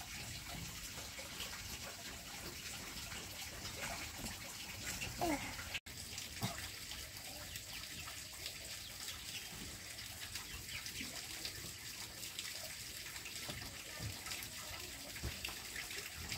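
Steady running water, with a brief faint voice about five seconds in.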